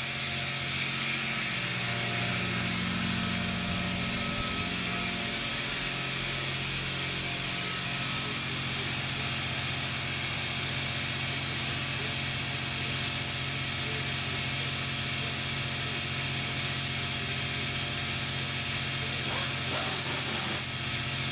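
Air-powered oil extraction tool running with a steady, loud hiss of compressed air and a low mechanical hum as it draws the remaining engine oil out into a catch container.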